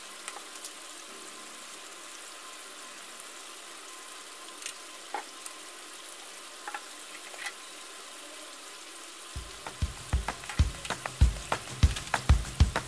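Chicken sambal gravy simmering in a wok: a steady sizzle with a few scattered crackles, then, about nine seconds in, loud irregular popping as the thick sauce bubbles.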